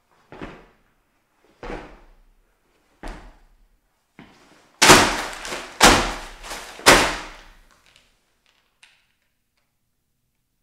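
A series of hopping landings on a tiled floor: three lighter thumps about a second and a half apart, then three louder stomps about a second apart as a paper letter is jumped on and crushed.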